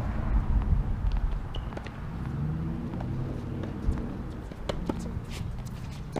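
Tennis rally: sharp pops of racket strings striking the ball and the ball bouncing on the hard court, one every half second to second, over a low steady background rumble.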